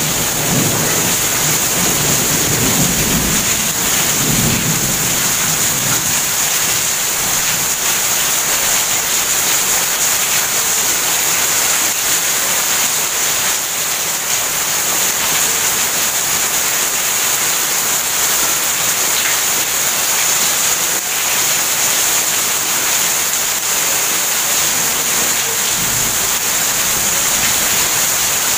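Heavy rain pouring down in a steady hiss. Low thunder rumbles through the first few seconds and again briefly near the end.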